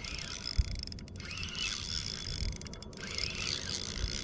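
Fishing reel being cranked while a hooked bass is fought in, a rough hissing mechanical noise with a few dull knocks.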